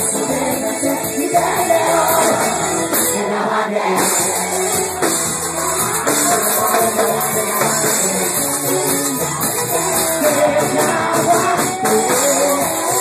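Live cumbia music played loud through a PA, a male singer's voice over a band with shaker-type percussion.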